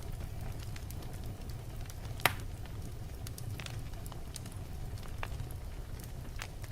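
Wood fire burning in a fireplace: a steady low rumble of the flames with scattered sharp crackles, and one loud pop a little over two seconds in.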